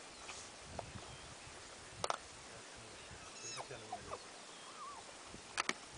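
Vultures and spotted hyenas feeding together on a carcass: short squealing calls in the middle, and sharp double clicks about two seconds in and again, louder, near the end.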